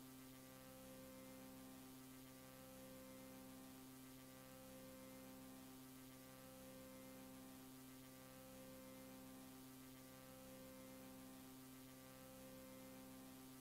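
Near silence with a faint steady electrical hum, one of its tones pulsing slowly about every two seconds.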